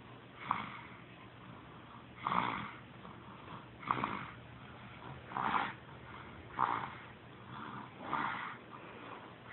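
Baby snoring in sleep: a short snore with each breath, repeating about every second and a half.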